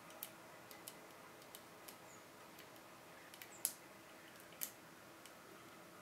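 Faint metallic clicks of a lock pick working the pin stacks of a Kaba Gege euro cylinder held under tension: scattered small ticks, with two louder clicks about three and a half and four and a half seconds in.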